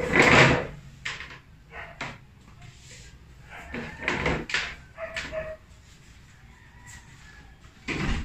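Knocks, bumps and scrapes of speaker boxes being handled on a plastic stool: a wooden speaker cabinet is lifted off, and a small subwoofer is set down and picked up again. The loudest is a heavy bump at the start, followed by shorter knocks with quiet between.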